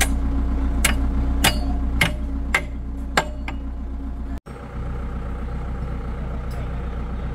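Heavy diesel engine running steadily, with a run of sharp knocks about twice a second for the first three seconds. The sound cuts out for an instant about four seconds in, then the engine carries on alone.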